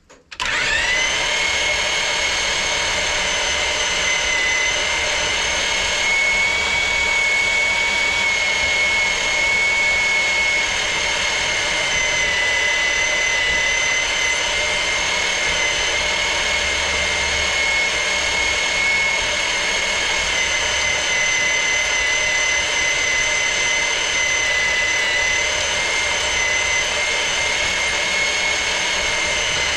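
A machine starts suddenly and runs steadily with a high whine, its pitch rising briefly as it comes up to speed.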